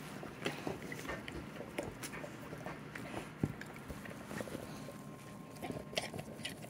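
Labrador retrievers shifting about close by: scattered soft clicks and rustles.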